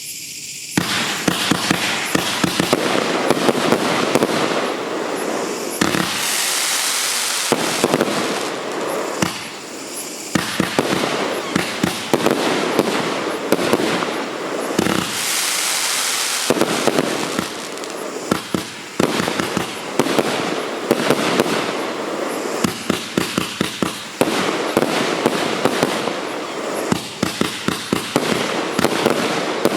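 Wolff 'Obsessed' fanned 168-shot fireworks compound cake firing in rapid succession: a dense stream of launch thumps and bursting reports, starting about a second in. Two spells of loud hissing come around six seconds and again around fifteen seconds.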